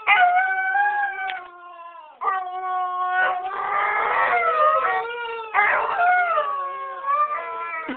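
A dog howling in three long, drawn-out calls one after another, each wavering up and down in pitch.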